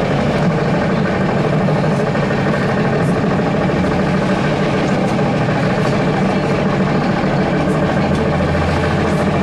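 Steady running noise inside a moving ZiU-682G trolleybus: the electric traction drive hums under road and body noise. A low hum grows louder near the end.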